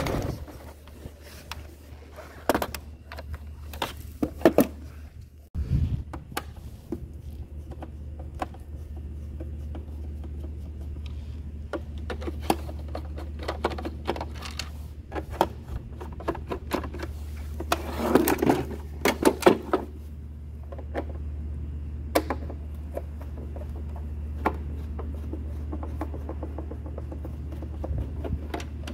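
Scattered plastic clicks, knocks and scrapes as an e-bike battery pack is taken out, handled and its case screws are worked with a screwdriver, with a busy run of clicking about two-thirds of the way through. A steady low hum sits underneath.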